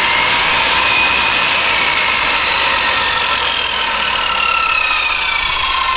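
Makita circular saw running free with no load, a steady high whine that sinks slightly in pitch. It is an old, mouldy saw whose motor still sounds good.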